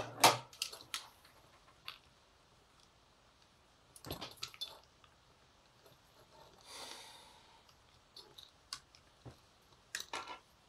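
Small metal parts and hand tools being handled on a workbench: scattered clicks and light taps, with a cluster about four seconds in, a short scraping rustle a little later, and a few more clicks near the end.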